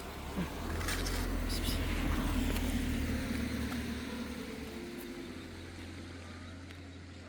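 A vehicle passing by: a low rumble that swells over the first two or three seconds and then slowly fades away.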